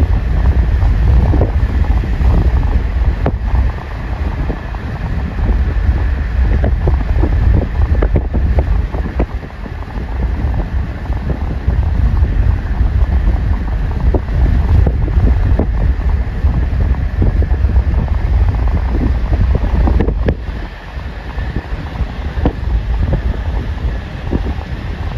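Wind buffeting the microphone over the rumble of a moving car, loud and steady, easing off briefly about four-fifths of the way through.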